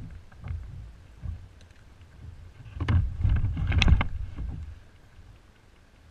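Wind buffeting the microphone of a kayak-mounted camera, with a loud cluster of knocks and clicks about three to four seconds in as a spinning rod and reel are handled and swung back for a cast.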